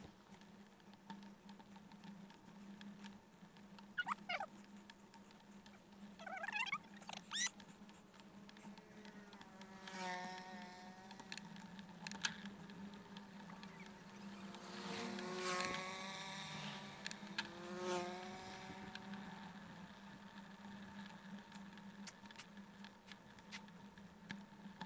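Faint, muffled noise of a bicycle ride: a steady low hum, a few short squeaky chirps about four and seven seconds in, and two louder swells with a pitched whine, around ten seconds and from about fifteen to eighteen seconds in.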